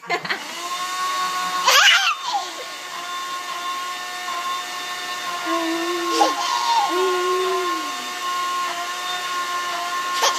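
Kitchen blender switched on and running steadily with an even motor whine. A small child's squealing voice rises and falls over it about two seconds in, and vocal sounds come again around six to seven seconds in.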